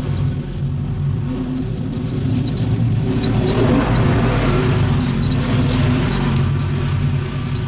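Gasoline lawn mower engine running steadily, its sound filling out a little around the middle as it cuts.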